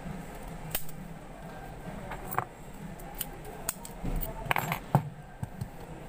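Small metal clicks and clinks as the parts of a doorknob lock are handled and fitted together by hand: a handful of separate sharp ticks, one with a short ring, the loudest about five seconds in.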